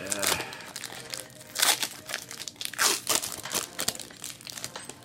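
A trading card pack's wrapper being torn open and crumpled: irregular crinkling and tearing, loudest in a few bursts.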